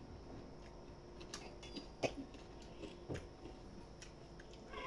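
Faint eating sounds: fingers squishing and mixing rice with dal on a steel plate, with soft wet clicks and chewing, the sharpest click about two seconds in.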